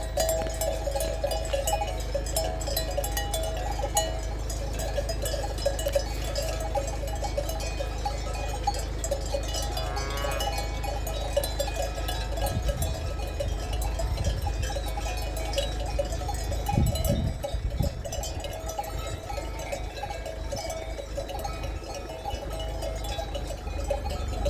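Many livestock bells clinking and ringing continuously and out of step, as from a grazing flock or herd wearing bells.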